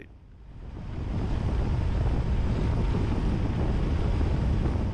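Steady rush of wind and road noise from a moving vehicle, swelling about a second in and then holding.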